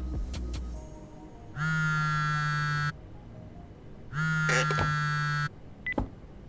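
Mobile phone on vibrate buzzing twice, each buzz a steady drone just over a second long, about a second apart. A click and a short high beep follow near the end.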